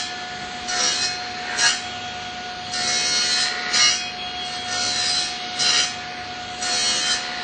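Table saw running with a steady whine while its blade cuts the corners off a wooden board, a short burst of cutting noise about once a second. Each burst is another corner being trimmed as the board is rounded down toward a circle.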